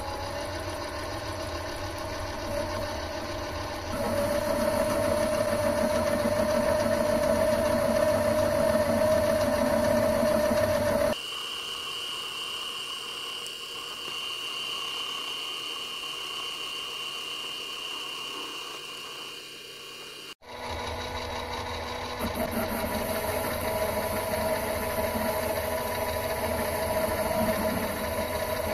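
Mini metal lathe running, its tool facing a spinning metal disc, with a steady motor and gear whine that gets louder a few seconds in. The pitch and level change abruptly twice, once near the middle and again about two-thirds through.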